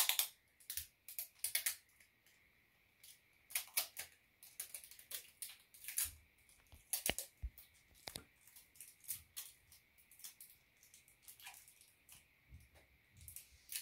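Clear sticky tape being pulled off its roll and cut with scissors: a run of short, irregular crackles and clicks.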